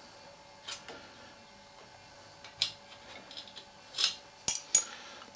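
Scattered metallic clinks and clicks of open-end wrenches working the lock nut and adjusting screw on the valve rocker of a Simson AWO 425 T engine, with two sharp clinks close together about four and a half seconds in.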